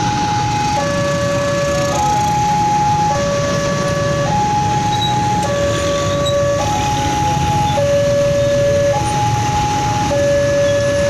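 Railway level-crossing warning alarm sounding a two-tone electronic signal, swapping between a low and a higher tone about once a second, warning that a train is approaching or passing. A steady low rumble runs underneath.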